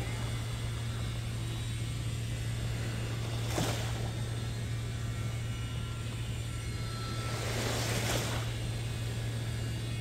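Steady low drone of construction machinery, with two brief rushes of noise, about four and eight seconds in.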